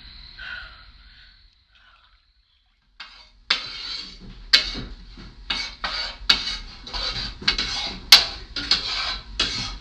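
Dishes and cutlery clattering in a kitchen: a quick run of clinks and knocks, several a second, starting about three and a half seconds in.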